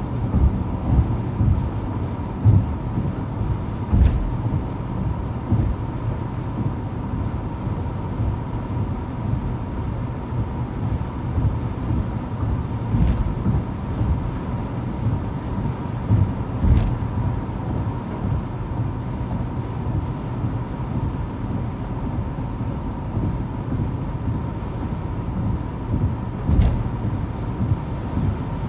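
Steady road and engine rumble inside a car's cabin at highway speed, with a faint steady whine underneath. A few brief sharp knocks come through, four in all, spread over the stretch.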